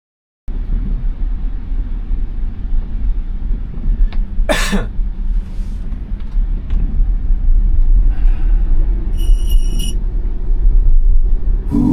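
Steady low road and tyre rumble inside the cabin of a 2021 Tesla Model Y driving on snowy roads, starting abruptly about half a second in. A short sharp noise comes near five seconds in, and a brief high electronic chime a little after nine seconds.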